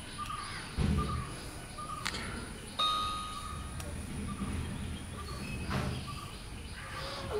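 Camera gimbal rig being handled close to the microphone: low rubbing and bumping handling noise, with a short steady electronic beep about three seconds in as the gimbal is switched back on. Faint bird chirps are scattered through the background.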